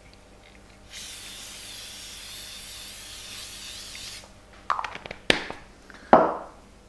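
Olive oil spray can giving one continuous hiss of about three seconds over chicken strips in an air fryer basket. Three sharp knocks follow near the end.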